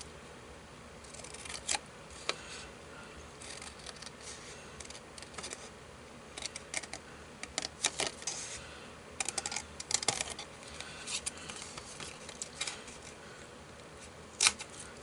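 Scissors snipping paper along printed cutting lines: irregular clusters of short, sharp snips with pauses between them.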